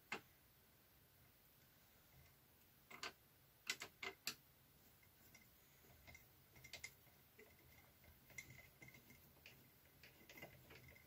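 Mostly near silence, broken by faint clicks and ticks of a screwdriver working the small screws under the row counter of a Singer 360 knitting machine. There are a few sharper clicks about three to four seconds in, then lighter scattered ticking.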